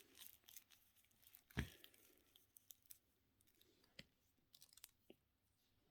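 Near silence with a few faint, short clicks; the clearest comes about one and a half seconds in and another about four seconds in.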